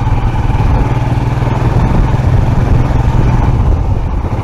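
Motorcycle engine running steadily while the bike is ridden, heard from the rider's seat.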